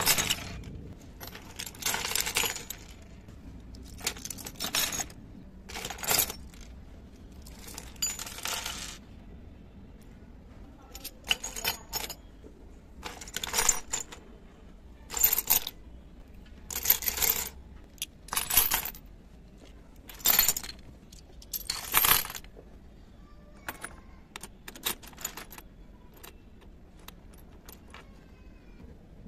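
Miniature toy kitchen utensils (small metal pots, plastic baskets, ceramic dishes) dropped in handfuls onto a heap on a wooden floor, clattering and jingling about a dozen times, every second or two. Near the end only light clicks of little dishes being handled.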